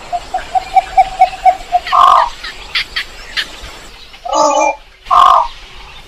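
Recorded lure call of the belkok sawah bird: a quick run of about ten short low notes, about five a second, then a louder call near two seconds in and two strong, hoarse calls a little after four and five seconds.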